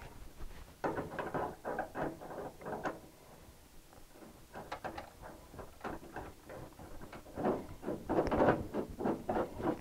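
Irregular metal clicks and scrapes of a knockout punch set being fitted by hand through the wall of a steel electrical enclosure, in two bursts with a quieter spell between them.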